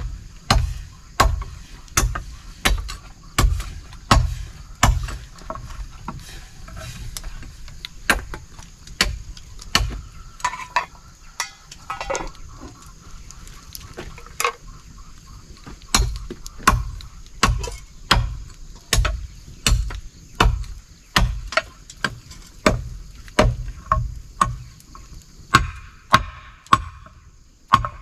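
Chopping on a wooden block, a steady run of knocks with a dull thud about one and a half a second, thinning out for several seconds in the middle before starting up again. Insects drone steadily and high behind it.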